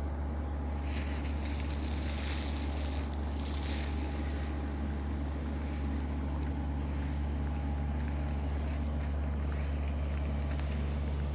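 An engine running steadily at a constant speed, a low drone. From about a second in to about four and a half seconds, a rushing hiss rises over it.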